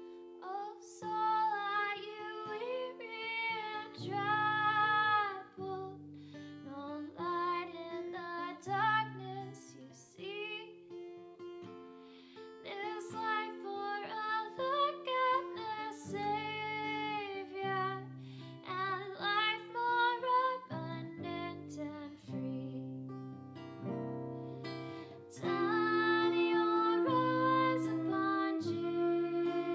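A song sung by one voice with vibrato on its held notes, accompanied by acoustic guitar.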